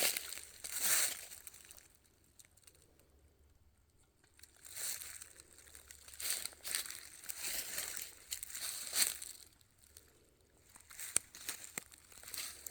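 Footsteps crunching on a gravelly hiking trail, one step about every half second, stopping twice for a second or two.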